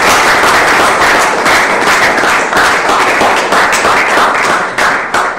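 Audience applauding: dense clapping from many hands that thins out near the end.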